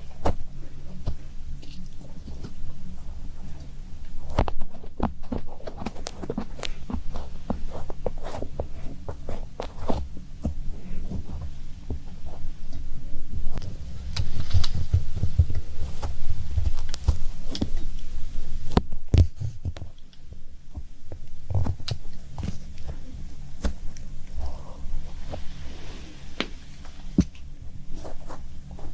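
Irregular soft clicks, taps and handling noises close to the microphone, over a low throbbing rumble; busiest in the middle.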